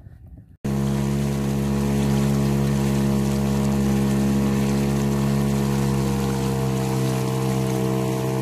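Small outboard motor on a fishing kayak running steadily under way, an even hum, with water rushing past in its wake. It cuts in abruptly just under a second in.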